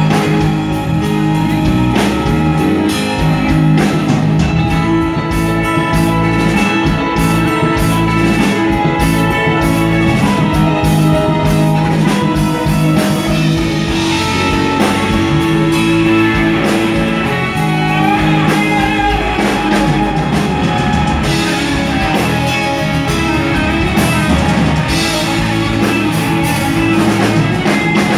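Live band playing through a stage PA at a soundcheck: electric guitars, keyboard and drum kit, loud and continuous.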